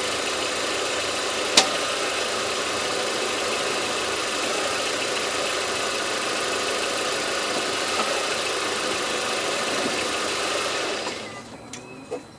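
Volkswagen Passat B5 1.8T turbocharged four-cylinder engine running steadily, with one sharp knock about a second and a half in; the owner suspects worn motor mounts. The engine sound drops away about 11 seconds in.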